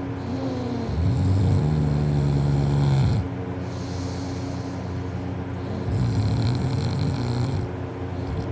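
A sleeping person snoring loudly: two long snores, the first about two seconds long and the loudest, the second a few seconds later and softer.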